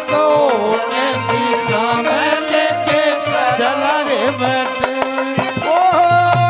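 Haryanvi ragni folk music: a gliding, ornamented melody line over steady held notes, with dholak drums keeping a regular beat.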